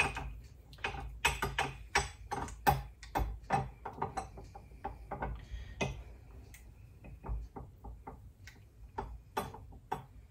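A spoon tapping and scraping sticky bread starter out of a measuring cup over a stainless steel stand-mixer bowl: a string of irregular light clicks and knocks.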